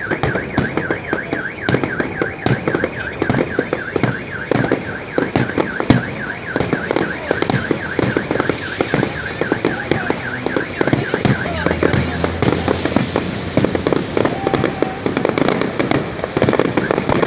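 Fireworks display: repeated bangs and crackles of aerial shells bursting. Over them a car alarm warbles rapidly, set off among the bangs, and stops about twelve seconds in.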